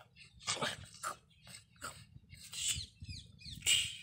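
White spitz-type dog making a string of about five short whines and huffs, with a few quick rising and falling squeaks about three seconds in.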